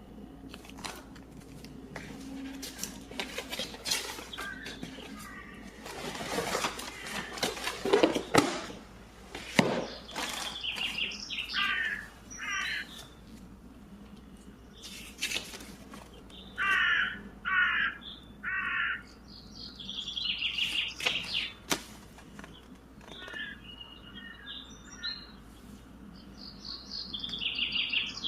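Plastic packaging and toy pieces being handled, with rustling and clattering that is loudest in the first half. Over it come short bird calls in groups, three in a row about two-thirds of the way through.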